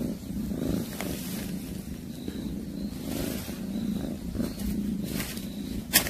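A cat eating a freshly caught mouse: a low rumbling from the cat in uneven pulses, with a few sharp crunches of chewing, the loudest near the end.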